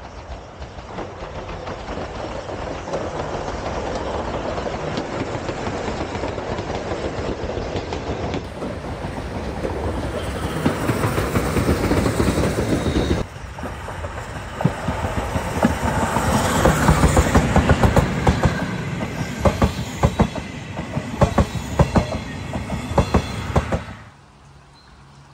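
Steam-hauled Chichibu Railway train going past close by: its running noise swells in the first half, then the wheels clack over the rail joints in a quick uneven rhythm. The sound cuts off abruptly near the end.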